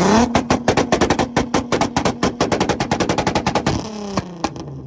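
Volkswagen engine held on a two-step launch-control rev limiter: a steady high-rpm tone broken by rapid pops and bangs from the exhaust, about a dozen a second. A little under four seconds in the throttle is released, a last couple of pops sound, and the revs fall away.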